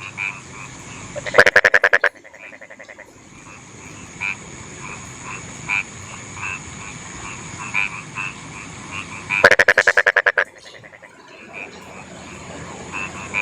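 Rice-field frogs croaking. Two loud rattling croaks of rapid pulses come about a second in and again near ten seconds, with many shorter, fainter calls between them over a steady high hiss.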